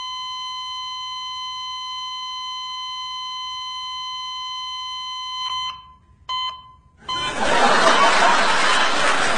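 A medical monitor's alarm sounds one continuous high-pitched tone, like a flatline, and cuts off a little after five seconds in. A short beep of the same tone follows, then a loud wash of noise sets in about seven seconds in.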